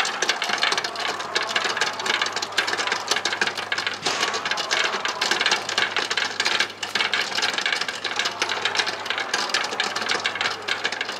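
Continuous rapid mechanical rattling and clattering over a steady low hum.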